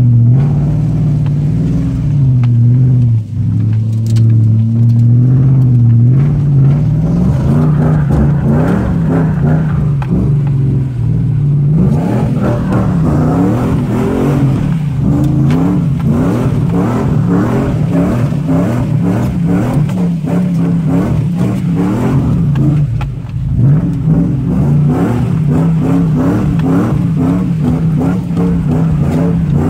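Nissan Titan's V8 engine heard from inside the cab while driving off-road through mud. The engine note holds fairly steady at first, then rises and falls repeatedly from about twelve seconds in as the throttle comes on and off.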